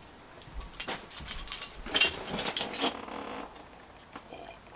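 A person sitting down in a leather office chair and handling a ceramic mug: a string of short knocks, clicks and rustling, the loudest about two seconds in, fading to quiet after about three seconds.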